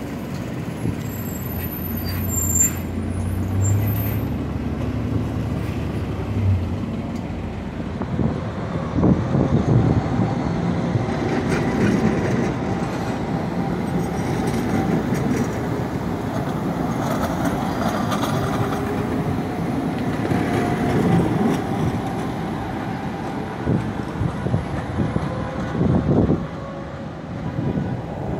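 A city diesel bus running with a steady low engine hum, which stops about six seconds in. Then a tram passes on street track, its wheels on the rails rumbling and rising and falling in level as the cars go by.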